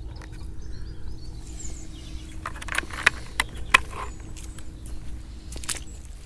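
Scattered sharp clicks and knocks, mostly from about two and a half seconds in, as a bucket of live scallops is lifted by its handle and carried, over a steady low rumble.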